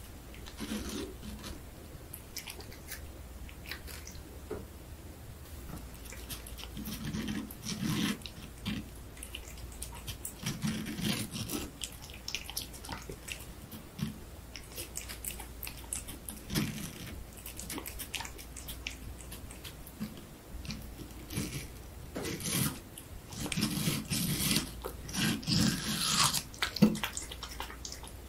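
A cat biting into and chewing watermelon flesh, in irregular bouts of bites with short pauses between, the bouts coming closer together and louder near the end.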